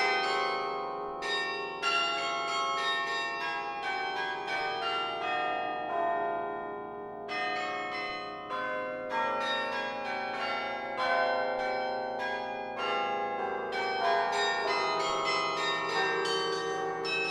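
Carillon bells of the Laura Spelman Rockefeller Memorial Carillon played from the baton keyboard: a quick succession of struck bell notes that ring on and overlap. About a third of the way in the strikes thin out to a few lower notes ringing on for a couple of seconds, then the fast playing resumes.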